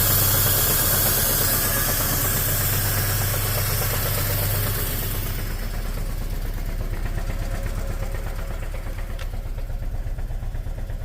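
Ford FG2 Falcon engine running, its sound turning quieter and duller about five seconds in and then settling into an even pulsing idle. The car has a P2110 throttle-body fault code, which puts the engine into its limited-power protection mode.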